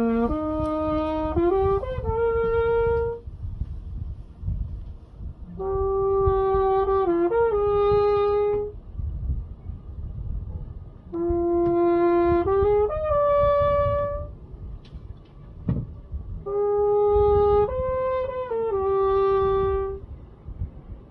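Trumpet played in four short phrases of a few held notes each, with pauses between them to let the echo come back off the rock wall. The echo itself is barely audible; a low rumble runs underneath.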